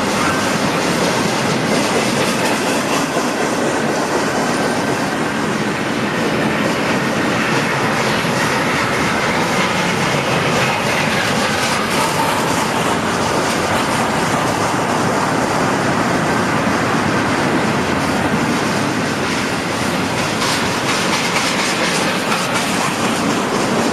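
Intermodal freight cars rolling past at speed, a steady rumble of steel wheels on rail with a clickety-clack of wheels over rail joints and some wheel squeal.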